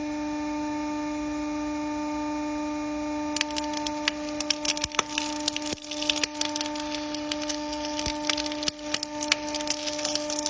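Electric welding machine humming steadily. About three seconds in, the welding arc starts crackling irregularly over the hum.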